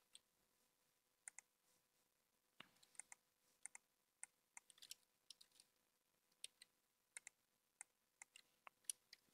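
Faint, irregular clicks of a computer mouse, some in quick pairs, over a faint steady hum.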